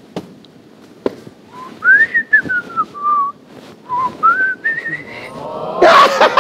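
A man whistling a short tune, one clear note gliding up and down. A sharp click comes about a second in, and near the end the whistle gives way to a loud burst of voice.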